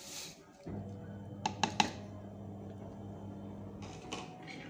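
Sugar poured from a plastic bag into a pot of cooked mung beans: a short rustle at the start and again near the end, and three sharp clicks close together about a second and a half in, over a steady low hum.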